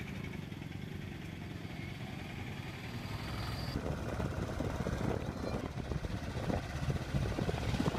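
Motorcycle engine running as the bike rides along a road, with wind and road noise at the handlebar-mounted camera. It gets louder about halfway through.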